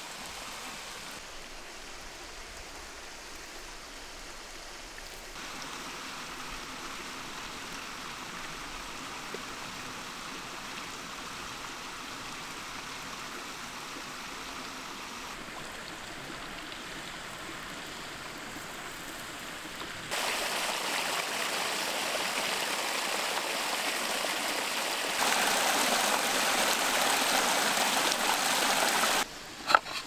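Steady rush of a mountain stream. Its loudness steps up several times and is loudest in the last few seconds.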